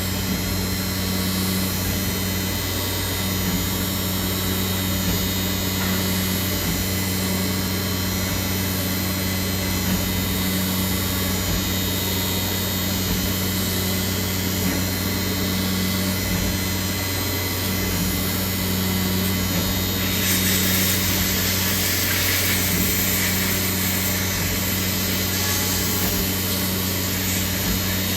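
CNC machine cutting a 3D contour chamfer: a steady spindle and machine hum with several constant tones. About twenty seconds in, a louder hiss joins.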